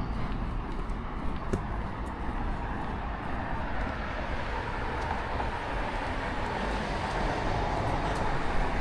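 Steady road traffic noise with a low rumble underneath.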